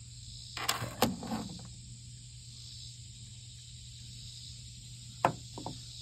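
Handling noise: a short rattle ending in a sharp clack about a second in, and a lone sharp click followed by two small ticks near the end, over a steady low hum.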